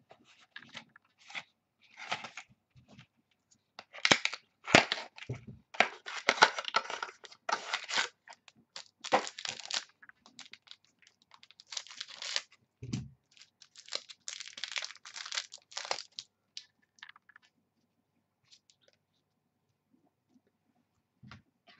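A trading-card pack's shiny foil wrapper being torn open and crinkled: a string of short crackling rips and crumples, loudest about four seconds in, dying down to a few faint rustles in the last few seconds.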